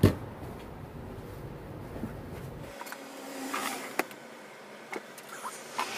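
Handling noise from reassembling an opened LCD monitor: a knock at the very start, then scattered small clicks and short rustles as the power board and parts are set into the monitor's metal chassis.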